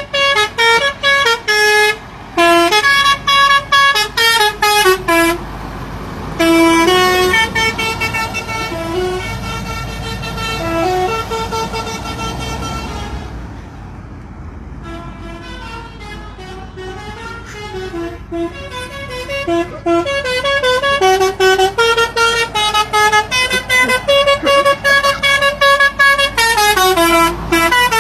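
Musical truck horn playing a tune: quick, short blasts stepping up and down between notes, then longer held notes, a short break about halfway, and rapid blasts again near the end.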